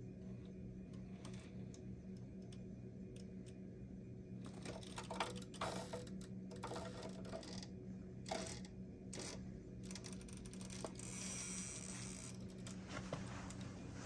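Electric scale RC rock crawler (Axial SCX10 III) crawling slowly over rocks: a faint steady hum of its motor and drivetrain, joined from about four seconds in by irregular clicks and knocks of tyres and chassis against the stone.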